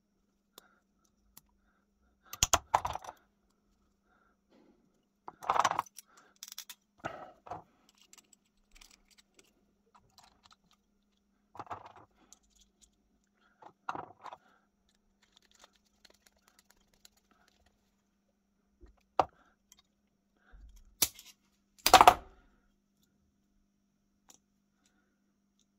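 Small steel lock parts of an antique percussion pistol clinking and clicking as they are handled and fitted back together by hand: irregular clusters of light metallic clinks a few seconds apart, the loudest near the end.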